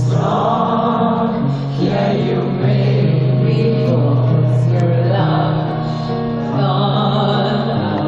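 A woman singing live into a handheld microphone over slow accompaniment, with sustained low notes that change about every second, heard through arena amplification from within the crowd.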